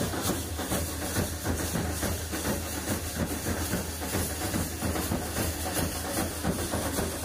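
Procession percussion troupe playing: brass hand cymbals clashing rapidly over drums in a dense, loud, unbroken din, with a steady low hum underneath.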